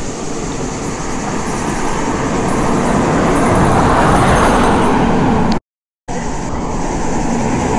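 Motor vehicles passing close by, the noise swelling to a peak about four seconds in and easing off. The sound cuts out completely for about half a second near the end, then rises again as more vehicles pass.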